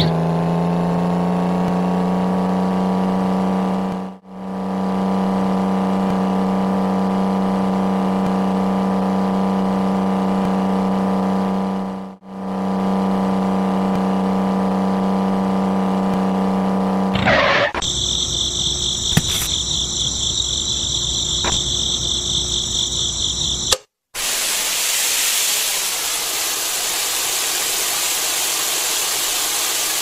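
A small motor running with a steady whine, rising slightly in pitch as it spins up at the start and dropping out briefly twice. About two-thirds of the way in, the sound changes to a higher, thinner whine, and then to a steady hiss for the last few seconds.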